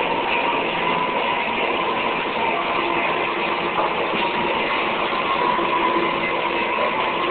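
Live experimental electronic sound: a dense, steady noise drone with a few faint held tones running through it.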